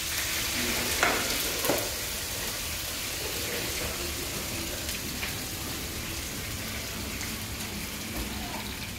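Steaks sizzling in a hot frying pan, a steady hiss, with two short knocks about one and two seconds in as the pan is slid across the stone counter.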